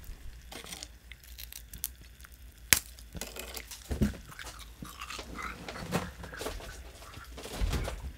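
Close-up crunching and chewing of brittle dalgona (Korean honeycomb sugar candy), a scatter of crackles with one sharp crack a little under three seconds in.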